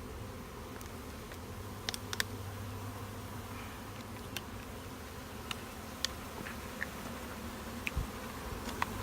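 A swarm of honey bees buzzing around an open hive, a steady low hum, with a dozen or so small sharp clicks and taps scattered through it.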